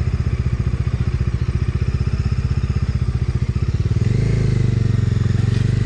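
Bajaj Dominar 250's single-cylinder engine running at low revs with distinct, evenly spaced firing pulses. About four seconds in, the revs rise to a smoother, steadier note as the motorcycle picks up speed.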